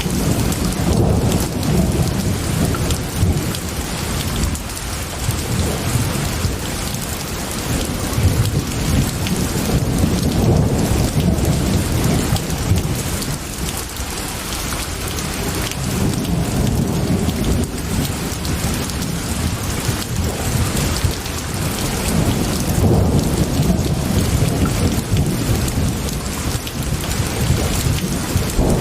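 Steady heavy rain, with low rolling thunder that swells and fades several times.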